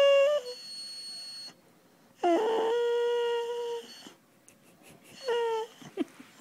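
Boxer dog whining: three high, drawn-out whines, a loud one at the start, a longer steady one of about a second and a half in the middle, and a short one near the end.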